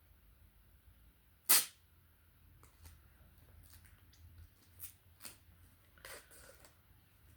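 A single loud, sharp crack about a second and a half in, then a few faint clicks and taps of small objects being handled.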